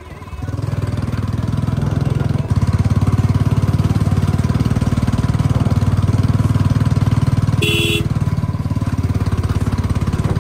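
Royal Enfield Bullet 350's single-cylinder engine running under throttle as the bike is ridden, heard from the rider's seat; it gets louder about half a second in and again at about two and a half seconds. A short horn beep sounds near eight seconds in.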